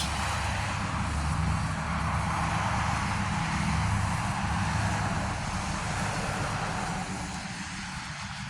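Steady engine rumble, like passing traffic, holding for several seconds and fading away over the last second or two.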